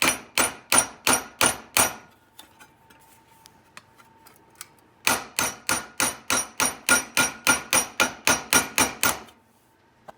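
Hammer beating a bent piece of metal flat: quick, evenly spaced ringing blows, about four a second. The blows pause for about three seconds a couple of seconds in, then start again for another four seconds.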